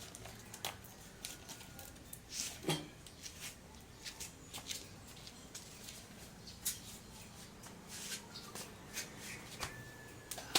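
Irregular light clicks and taps from parts being handled while a rack is assembled, with one louder knock about three seconds in.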